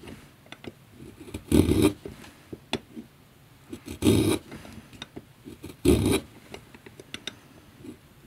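Freshly honed blade of a Lee Valley Little Shaver shaving wood off a pencil: three short scraping strokes about two seconds apart, with small clicks of handling between them.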